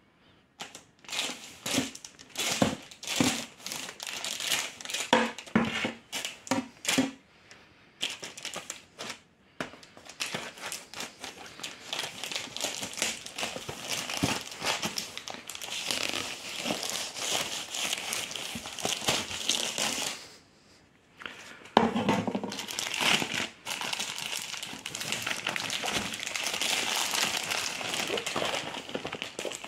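Crinkly packaging of a French combat ration pack being handled and crumpled, in irregular rustling bursts with a short lull about two-thirds through.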